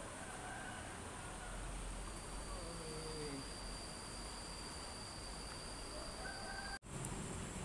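Steady rush of a fast-flowing river, with an insect's steady high-pitched trill starting about two seconds in and stopping at a brief dropout near the end.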